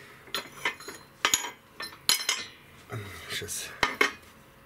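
Metal tools and parts being handled on a workbench: a string of sharp metallic clinks and knocks at irregular intervals, several of them ringing briefly.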